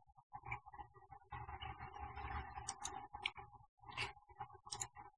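Faint, irregular clicks and ticks from a laptop, over a steady thin whine and low hum.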